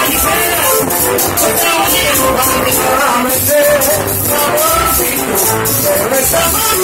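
Live Latin dance band playing loudly: vocals sung into microphones over saxophone, hand drums and a steady shaker-and-drum beat.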